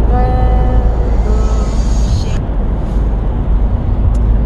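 Steady low road and engine rumble inside a moving car's cabin. Two short held notes sound over it in the first second and a half.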